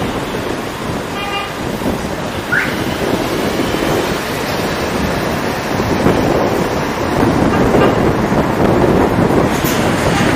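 Street traffic heard from a moving car, with a steady rush of wind and road noise on an outside-mounted microphone. A short car horn toot comes about a second in.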